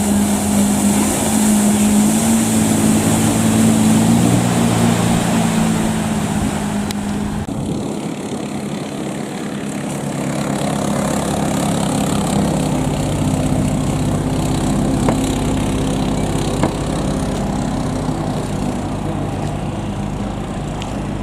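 Outboard long-tail engines of vỏ lãi racing boats running at high revs. One engine's steady note dies away about a third of the way in, and another boat's engine comes up strongly from about halfway.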